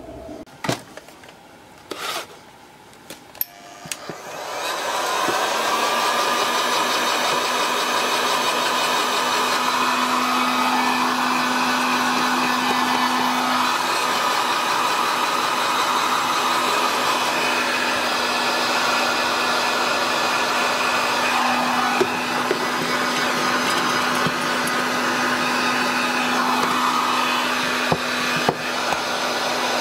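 Electric heat gun switched on about four seconds in and blowing steadily with a constant hum, shrinking heat-shrink tubing over a battery pack. A few handling clicks and knocks come before it starts.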